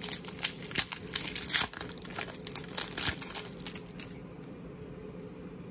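Foil wrapper of a hockey card pack being torn open and crinkled by hand: a rapid run of sharp crackles that stops about four seconds in, leaving quiet room tone.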